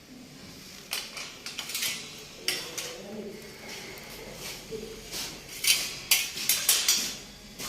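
Light metallic clinks and scrapes of tools being handled against a metal cable tray during marking out, in irregular bursts, busiest in the second half.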